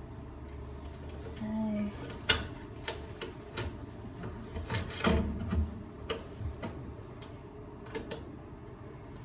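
Irregular clicks and small metallic taps of hand tools and screws being handled while a range power cord's wires are fastened to the stove's terminal block. The sharpest click comes about two seconds in, and the taps thin out after about eight seconds.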